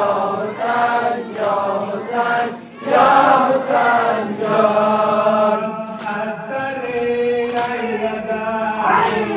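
A man chanting a noha, a Shia mourning lament for Muharram. He sings in short phrases at first, then in longer held lines from about three seconds in.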